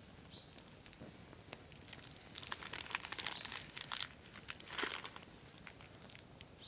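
Plastic wrapper on a block of smoked cheese crinkling in the hands while slices are cut off with a knife: a run of short crackles from about a second and a half in, loudest around the middle, fading out near the end.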